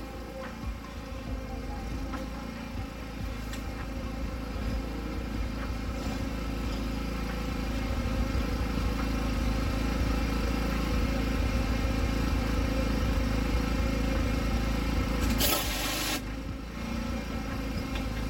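Pressure washer engine running steadily while a rotary surface cleaner spins over wet concrete, with a brief louder hiss of spray about fifteen seconds in.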